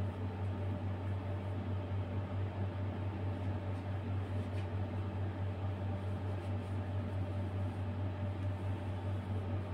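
Steady low machine hum with an even hiss, with a few faint clicks about four seconds in.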